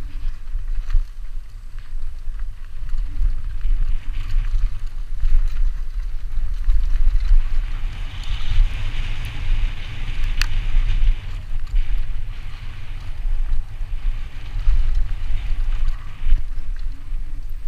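Wind buffeting a helmet camera's microphone during a fast downhill mountain-bike descent, over a steady hiss and crackle of tyres on a dry dirt trail, with occasional sharp rattles from the bike.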